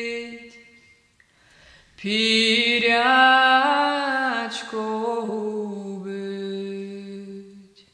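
A woman's solo voice singing a Ukrainian folk song unaccompanied. A held note fades out within the first second; after a pause for breath, a new long phrase begins about two seconds in, its pitch rising and falling slowly before settling on a long, low held note near the end.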